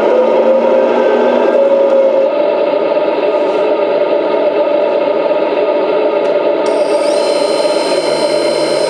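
Sound module of a 1/14 Kabolite K350-200 RC hydraulic excavator playing a simulated diesel engine running steadily, with a whir under it; a higher whine joins about seven seconds in.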